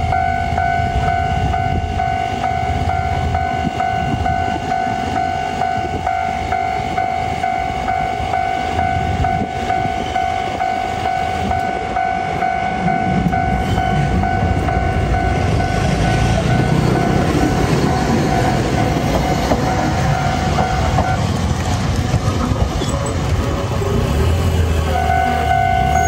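Level-crossing warning bell ringing its repeated 'kan-kan' tone while a Toden Arakawa Line tram passes over the crossing. The tram's rumble and wheel noise build up and are loudest in the second half. The bell stops a few seconds before the end, then starts ringing again.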